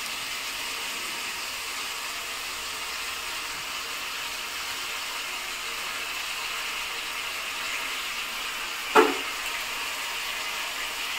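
Spice paste of green chilli and cumin sizzling steadily in oil in a kadai as it fries down. About nine seconds in there is one brief louder sound.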